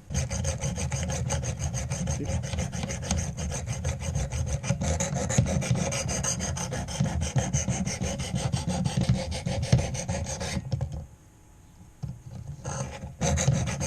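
Sharpening stone on a guided knife sharpener rubbed rapidly back and forth along a knife blade, a steady rasping scrape. The strokes stop about eleven seconds in, then two brief strokes come near the end.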